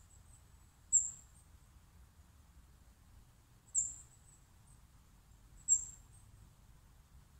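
Small bird giving very high-pitched thin calls: three short chirps about two seconds apart, with fainter twitters between them.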